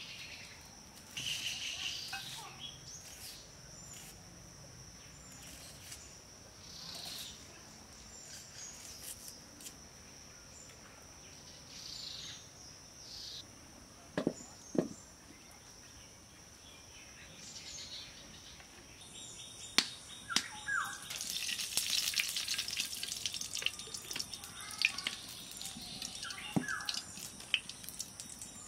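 A steady high insect drone with occasional bird chirps, broken by a few sharp knocks and clinks, the loudest about halfway through and again near two-thirds of the way in.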